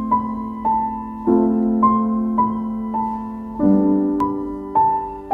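Background piano music: a slow melody of single notes, a new one about every half second, over held low notes.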